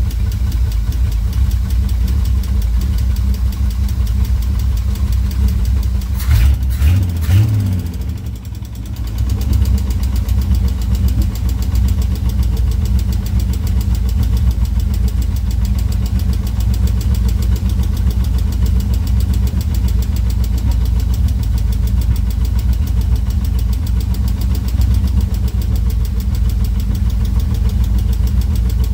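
1969 Opel Commodore's straight-six engine idling steadily on its two-barrel carburettor. About six seconds in it picks up speed briefly, sags for a moment, then settles back to a steady idle.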